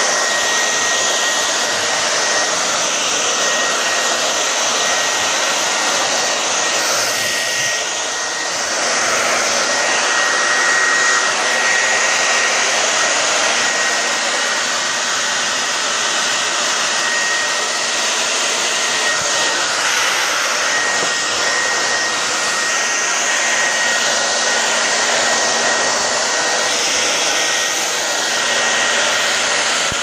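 Handheld hair dryer blowing steadily: a constant rush of air with a thin high whine running through it.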